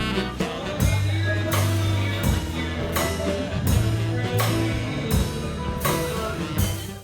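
Upbeat swing-jazz music with horns and a drum kit, the drums hitting a steady beat about every 0.7 seconds.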